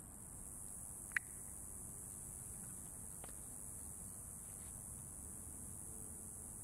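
A sharp metallic snip about a second in, and a fainter click around three seconds in: diagonal cutters cutting off the excess steel cable of a Rogue SR1S speed rope. Under it, a steady high buzz of insects.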